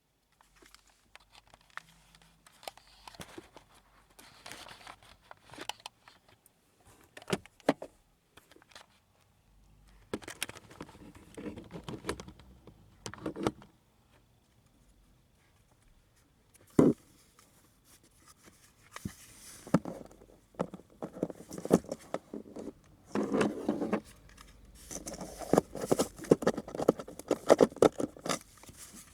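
Hands handling small hard objects: irregular clicks, rustles and jingles, with one sharp knock about 17 seconds in and busier clattering in the last third.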